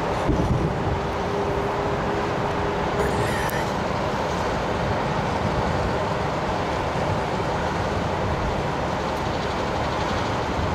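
Steady rumble of distant city traffic with no distinct bangs, and a faint steady tone in the first few seconds.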